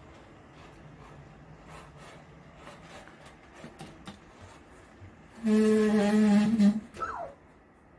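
LOVOT robot's electronic voice: a loud, wavering 'gii-gigigii' call lasting about a second, then a short falling chirp, as the robot snags on an electric fan's power cord. Before it, faint clicks and rubbing of the robot moving over the floor.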